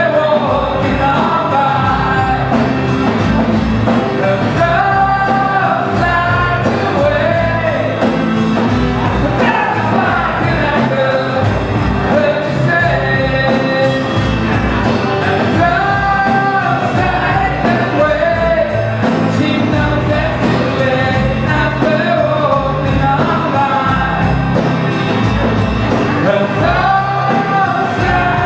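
Live rock band playing a song: a male lead vocal sung over electric guitars with a steady beat.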